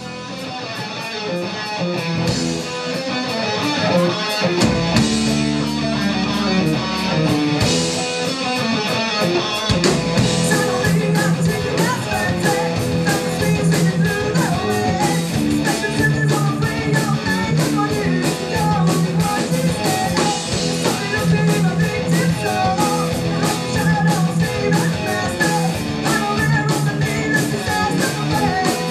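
Hard rock band playing live on electric guitars and a drum kit. The music fades in over the first few seconds, then the full band plays loud, with steady drumming from about ten seconds in.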